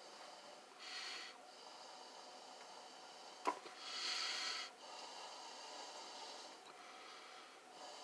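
Two short breaths blown out, about a second in and again around four seconds in, as a man puffs cigar smoke into a vacuum hose to smoke-test the engine for a vacuum leak. A sharp click comes just before the second breath, over a faint steady hum.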